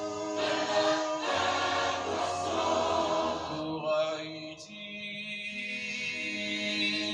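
Gospel choir singing a cappella, holding sustained chords that shift about a second in and again around four seconds.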